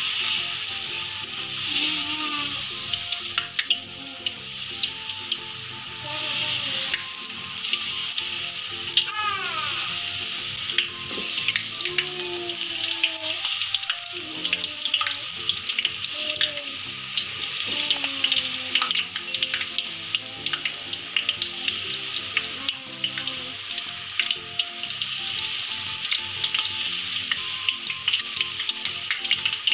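Batter-coated eggplant slices deep-frying in hot oil, sizzling and crackling steadily as more slices are dropped in. Background music plays underneath.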